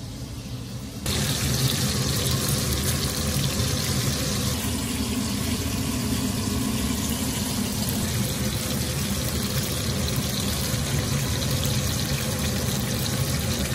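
Hash browns (shredded potatoes) frying in hot oil in a pan: a steady sizzle that starts suddenly about a second in.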